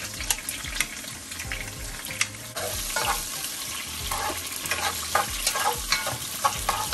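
Chopped onions frying in hot oil in a pan: a steady sizzle, with the quick clicks and scrapes of a utensil stirring them. The stirring taps come thicker from about three seconds in.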